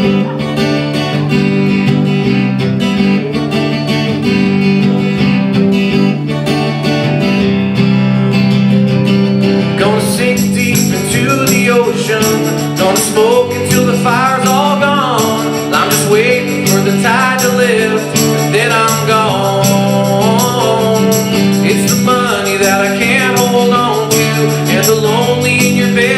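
Live acoustic country-folk band playing: strummed acoustic guitars carry the song, and about ten seconds in the sound gets brighter and fuller as singing comes in.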